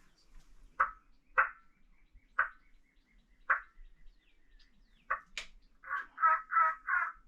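Turkey clucks: single short notes about a second apart, then a quick run of four yelps near the end, with a sharp click just before the run.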